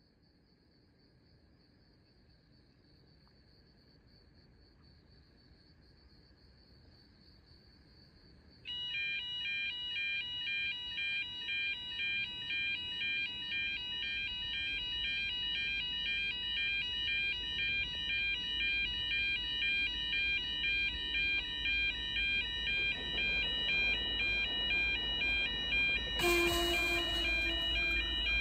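Railway level-crossing warning bells start abruptly about a third of the way in and ring in a fast, even repeating ding, over faint crickets. A low rumble from an approaching diesel XPT passenger train grows under the bells, and near the end there is a brief loud horn blast.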